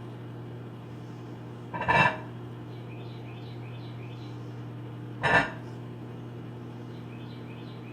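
Microwave oven running with a steady hum, broken twice by a short, loud crackling buzz as the halved grape arcs and sparks into plasma.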